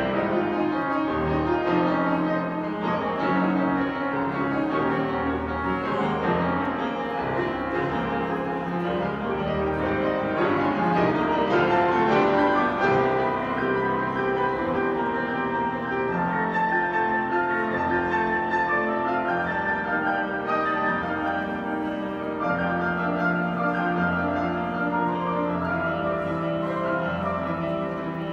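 Grand piano played four hands by two players as a duet: a continuous flow of notes with no breaks.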